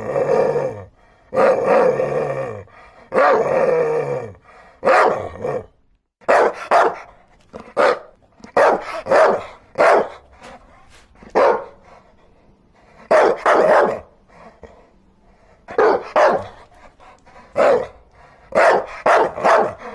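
Dogs barking: first a few long, drawn-out barks of about a second each that fall in pitch, then, after a short break about six seconds in, a string of short, sharp barks.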